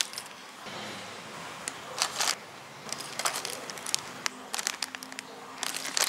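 Clear plastic bags of small toy building-block parts crinkling in short bursts as hands handle them, with the loose pieces inside shifting.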